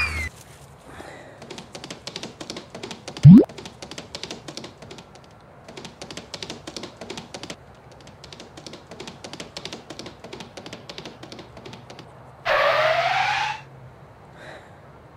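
Comedy sound effects dubbed over the footage: long runs of rapid clicks like fast typing, a short loud upward slide in pitch about three seconds in, and a loud rasping burst about a second long near the end.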